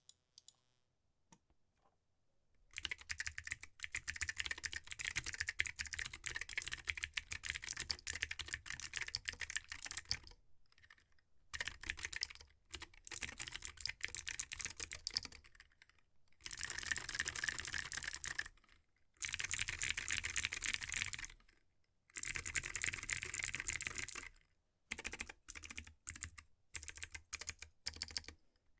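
Typing on a REVIUNG41 mechanical keyboard with lubed Keychron blue clicky switches: fast runs of crisp keystroke clicks in bursts of a few seconds, separated by short pauses. The typing starts about three seconds in and thins to a few scattered keystrokes near the end.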